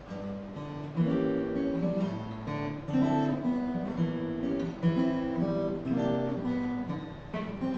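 Acoustic guitar strummed as a song's instrumental intro, with strong chord strokes about once a second.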